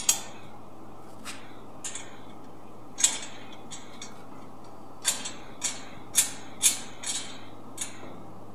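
Stainless steel grinding head of an instant wet grinder handled by hand: about a dozen irregular sharp metallic clicks and clinks as the parts are fitted, several close together near the end.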